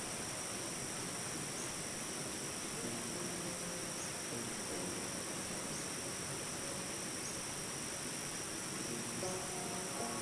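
Tropical forest insect chorus: a steady high-pitched shrilling of crickets or cicadas, with a small chirp repeating about every second and a half, and faint lower calls in the background.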